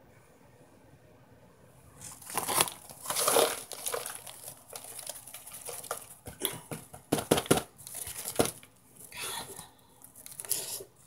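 Crinkly printed packaging rustling and crackling as it is handled, with sharp clicks mixed in. It starts about two seconds in and comes in irregular bursts.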